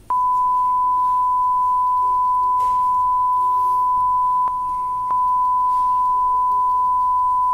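A steady electronic beep held at one high pitch, dipping slightly in level for a moment about halfway through.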